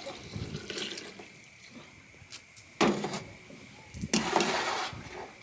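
Someone sipping hot pour-over coffee from a cup: a short slurp about three seconds in, then a longer, louder slurp a second later.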